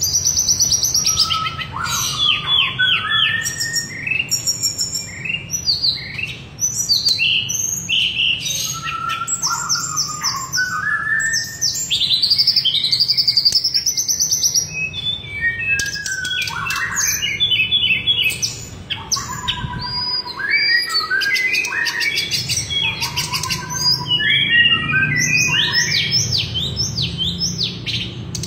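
Caged tledekan songbird singing at full voice in a long, almost unbroken run of varied phrases: rapid repeated notes, trills and gliding whistles, with a faint low hum underneath.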